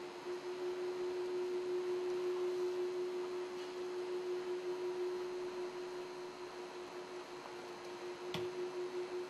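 A single steady, pure drone tone of the dance's accompaniment, held throughout. It swells a little over the first couple of seconds, then eases back. One sharp click comes about eight seconds in.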